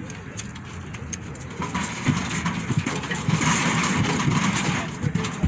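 A motor vehicle engine running, with a louder rushing noise that swells in about a second and a half in and eases off near the end.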